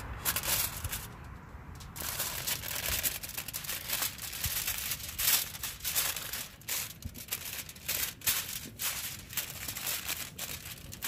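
Aluminium foil crinkling and rustling in irregular handfuls as it is folded and creased by hand.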